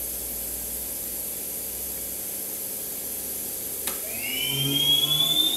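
Milltronics VM30 vertical machining center's CAT 40 spindle running with a steady hiss. A click comes about four seconds in, then a rising, louder whine as the spindle speeds up to the 2,500 RPM just called for.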